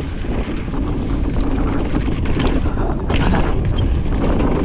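Wind buffeting the camera microphone and mountain bike tires rolling over a dry, leaf-covered dirt trail at speed, with frequent knocks and rattles from the bike over bumps.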